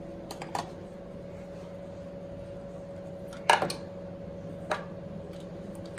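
Metal clicks and a sharper knock as the compression tester's hose and fitting are handled against the engine's cylinder head, over a steady low hum.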